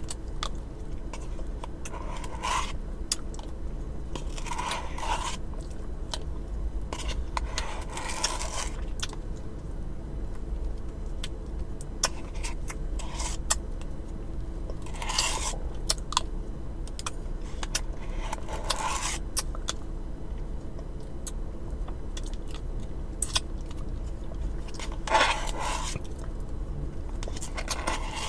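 Close-miked eating: chewing and mouth sounds with short rustling, crackling bursts and clicks every few seconds, over a low steady hum.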